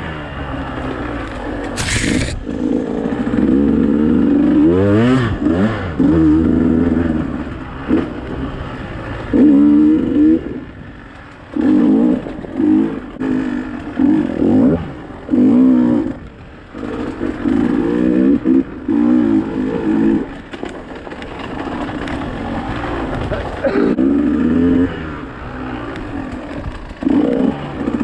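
Dirt bike engine revving up and down in repeated short bursts as the throttle is opened and closed, with quieter off-throttle dips between. A sharp knock comes about two seconds in.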